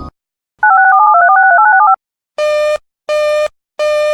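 Alert-system signalling tones: a short click, a rapid sequence of touch-tone (DTMF) dual-tone beeps lasting about a second, then a buzzy beep that starts about two seconds in and repeats roughly every 0.7 s.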